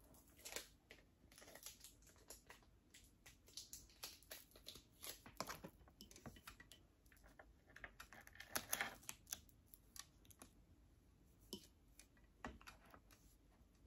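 Faint, irregular small clicks and taps of hands handling a plastic tumbler and tape, with a denser cluster of clicks about nine seconds in.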